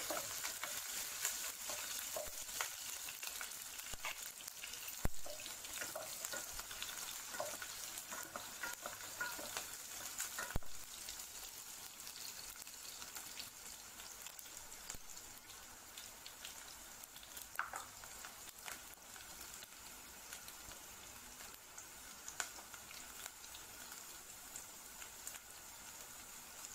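Sliced onions sizzling steadily in hot oil in a non-stick pan, stirred now and then, with a few sharp knocks as the wooden spatula hits the pan. The sizzle softens a little after about twelve seconds.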